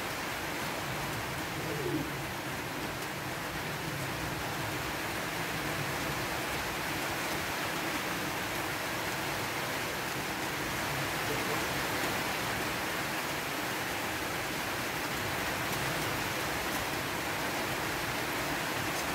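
Steady, even background hiss, with a few faint clicks.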